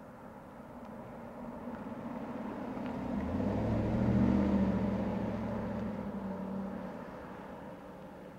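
2009 Chevrolet Silverado's 6.2-litre V8 and tyres driving past. The engine hum and road noise build, peak about four seconds in as the truck goes by, then fade as it drives away.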